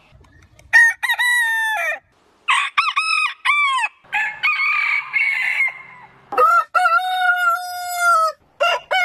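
Roosters crowing, one crow after another: four long crows, the last the longest, and the start of a fifth near the end.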